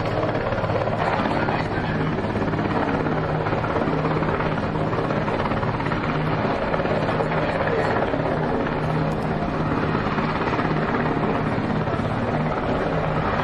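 Steady drone of a warship's machinery mixed with wind noise on the microphone, with a low steady hum.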